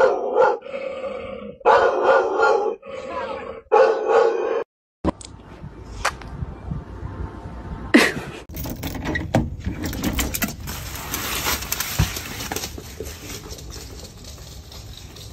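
A large dog howling in three drawn-out calls of about a second each, stopping about four and a half seconds in. Later a single sharp knock about eight seconds in, then a steady hiss.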